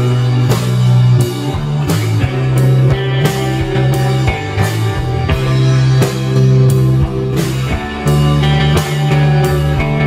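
Background rock music with guitar and drums, playing at a steady beat.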